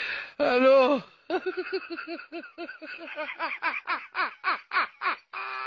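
A person laughing hard: a long run of short, rhythmic 'ha' bursts, about three a second, each dropping in pitch, ending in a held high note.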